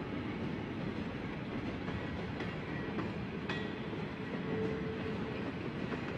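Open-sided passenger cars of a Shay-hauled train rolling past on the track: a steady rumble with irregular clicks from the wheels and a few brief, faint wheel squeals.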